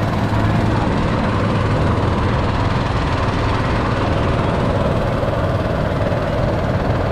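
An engine running steadily at idle, a low, continuous rumble with no change in speed.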